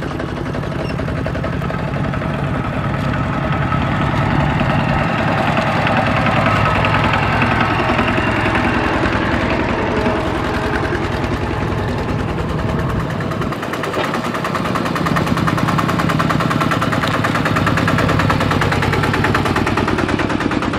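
Two-wheel walking tractors' single-cylinder diesel engines running under load with a rapid, steady putt-putt beat as they haul trailers of rice sacks.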